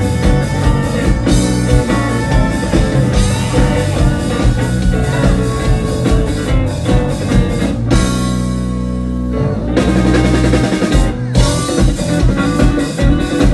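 Live rock trio playing an instrumental passage on electric guitar, electric bass and drum kit. About eight seconds in the drums stop for a moment while a chord rings on, then the full band comes back in.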